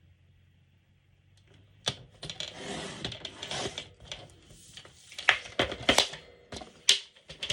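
Cardstock being handled and cut to size: a sharp click about two seconds in, a stretch of scraping and rustling, then several more sharp clicks.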